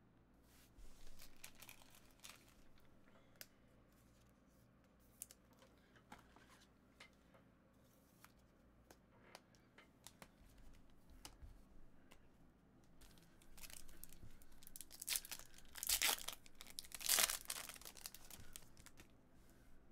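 Trading-card pack wrappers being torn open and crinkled, with small clicks of cards being handled; the loudest bursts of tearing come about fifteen to seventeen seconds in.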